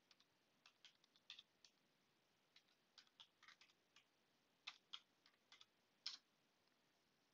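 Faint computer keyboard typing: irregular key clicks as a username and password are entered, stopping about six seconds in.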